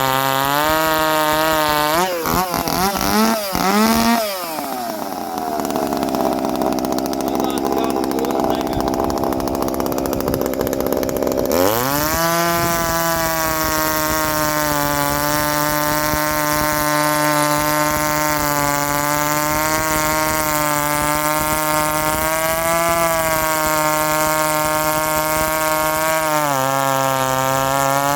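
Two-stroke chainsaw running: blipped up and down a few times, held at full throttle for about seven seconds, then dropped back to a steady, slightly wavering lower speed. Near the end it drops lower still, then revs up again.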